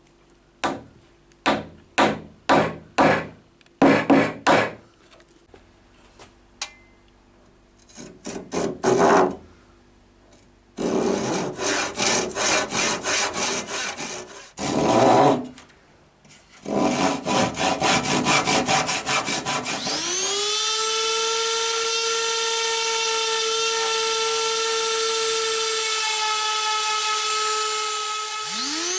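Hand saw strokes cutting through wood, in several bursts of quick back-and-forth strokes. About two-thirds of the way in, a small electric power tool's motor winds up in pitch and runs steady, with a brief dip and pick-up at the end.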